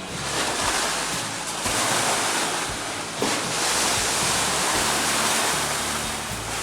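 Waves washing: a rushing noise that swells and eases several times.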